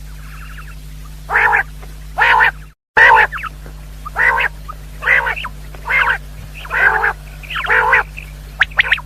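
Quail giving a series of short, harsh, croaking calls, about one a second, eight in all, with a brief cut-out in the recording shortly before the midpoint. A steady low electrical hum runs underneath.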